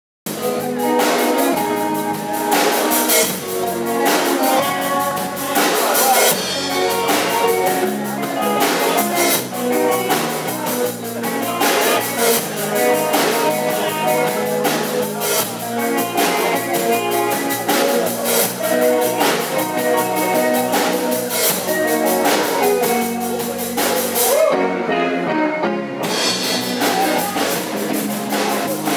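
Live band playing: electric guitars over bass and an Epiphone drum kit with cymbals. A few seconds before the end the cymbals drop out for about a second and a half, then the full band comes back in.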